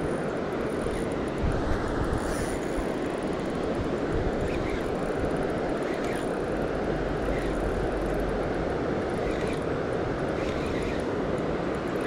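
Steady rush of river water running over rapids.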